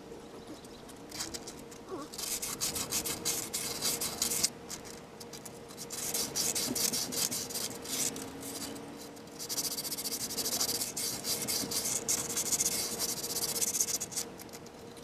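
Sandpaper rubbed by hand in quick back-and-forth strokes inside the metal bushing bore of a BMW E36 rear trailing arm, cleaning out the surface before the new polyurethane bushing goes in. It comes in spells with short pauses between, starting about a second in.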